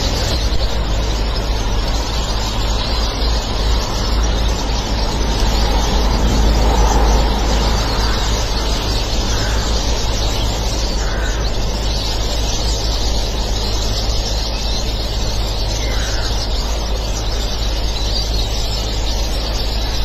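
Water spraying from a leak in a black hose into a shallow puddle: a steady hiss over a low rumble.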